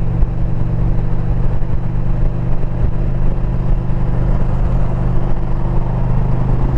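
2022 Indian Pursuit's V-twin engine running at a steady cruise on the road, with a constant engine hum under a steady rush of noise.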